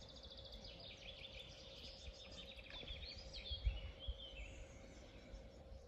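A songbird singing: a quick run of high repeated notes, then sliding whistled phrases that fade out a little after four seconds. A couple of low thumps come a little after halfway.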